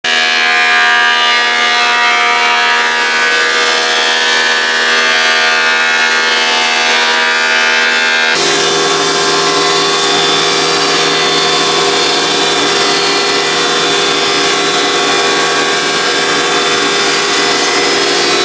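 Delta DC-380 15-inch thickness planer running steadily with a dense, high whine. The tone changes abruptly about eight seconds in, with more low hum after the change.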